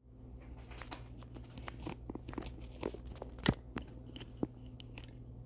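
Irregular small clicks and crackles, the loudest about three and a half seconds in, over a steady low hum.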